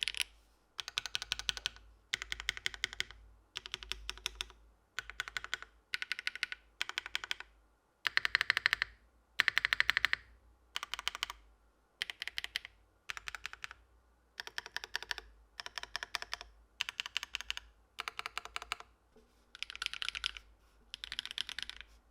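Mechanical keyboard fitted with HMX Ziwei switches, 'cycle 7' in the title, being typed on in quick runs of keystrokes. Each run lasts about a second and is followed by a brief pause, over and over.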